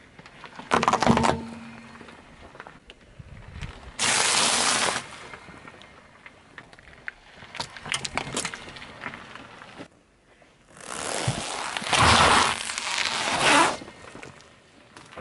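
Car tyre rolling over and crushing objects on asphalt: a short crunch about a second in, then a row of plastic clothespins cracking and crunching under the tyre for a few seconds in the second half.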